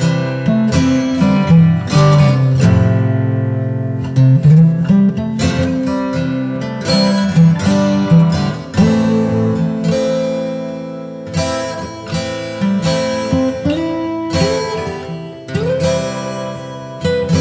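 Background music played on an acoustic guitar, with notes plucked one after another.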